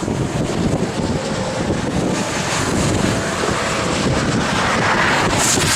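Strong wind buffeting the microphone: a steady rushing noise that swells about five seconds in.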